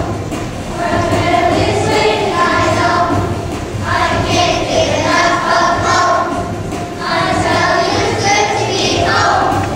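Children's choir singing a song together in phrases, with many young voices in unison.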